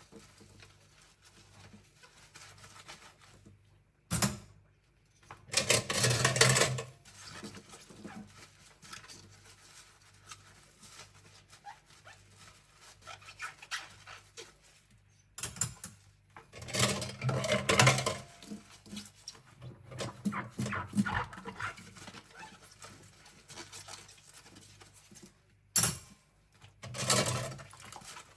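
Cutlery and utensils being scrubbed by hand at a sink, in several bursts of scrubbing with quieter pauses between. There is a short sharp clink about four seconds in and another near the end.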